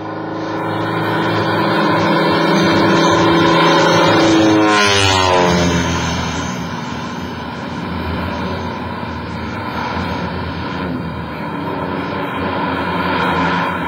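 Propeller-driven topdressing plane flying past, its engine note growing louder, then dropping in pitch about five seconds in as it goes by, and running on more steadily as it moves off.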